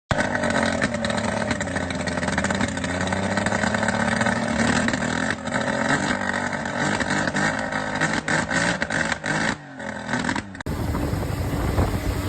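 A motor engine running, its pitch wavering up and down a little as it revs. Near the end it cuts abruptly to a different, windier engine sound.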